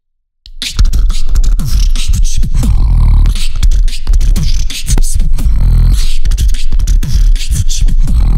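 Beatboxing into a handheld microphone cupped in both hands: deep bass with sliding pitch under sharp clicks and snare hits in a fast, dense rhythm. It starts after a brief silence about half a second in.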